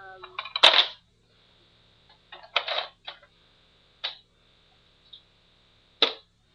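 Plastic clicks and clatter from handling a Nerf Vulcan EBF-25 blaster and its ammo: a loud rattle about half a second in, another cluster of knocks near three seconds, then a few single clicks.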